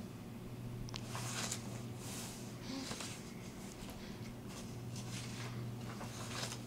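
Sleeping baby breathing noisily: a series of short, hissy breaths, about one every second, over a steady low hum.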